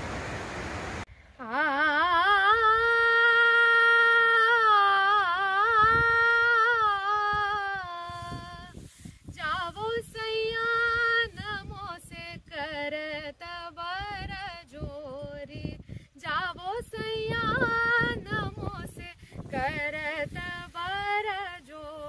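Rushing waterfall for about a second, cut off abruptly by a woman singing unaccompanied in a high voice. She holds long notes with a wide vibrato over the first several seconds, then sings shorter phrases.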